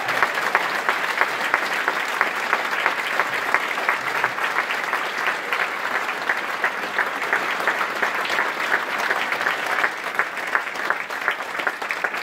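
A large audience applauding, a dense, steady clatter of many hands clapping that eases a little near the end.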